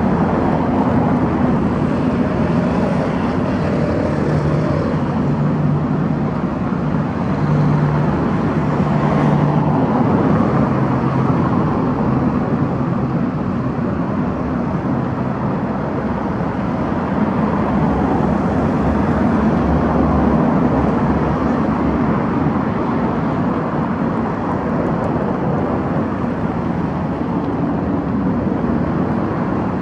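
City road traffic: cars and vans driving past in a steady wash of engine and tyre noise, with a low engine hum standing out for a few seconds about a quarter of the way in and again about two-thirds through.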